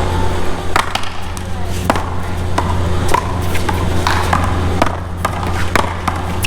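Paddleball rally: a string of sharp cracks, about one or two a second at uneven intervals, as paddles strike the rubber ball and the ball slaps off the wall.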